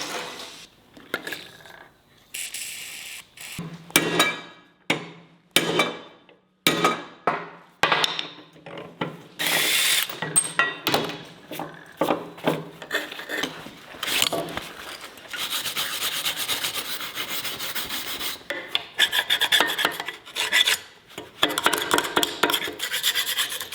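A heavy-duty hand scraper scraping a steel trailer landing-gear jack, metal rasping on metal in repeated strokes. The strokes are short and separate at first and become faster and nearly continuous in the second half.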